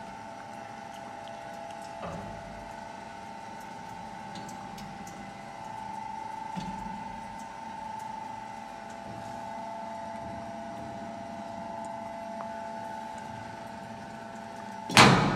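Risco TR 130 industrial angle meat mincer running, a steady electric-motor hum with a whine, with a small knock about two seconds in and a loud clunk near the end.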